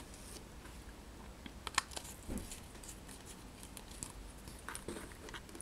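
A few faint clicks and taps of small objects being handled on a tabletop, the sharpest just under two seconds in and a duller knock soon after, over a low steady room hum.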